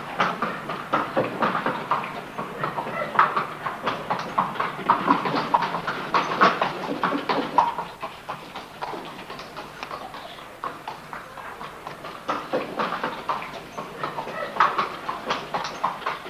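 Horse-drawn hay cart on a cobbled village street: hooves clopping and the cart clattering in a busy, irregular run of knocks. It grows quieter for a few seconds past the middle, then picks up again.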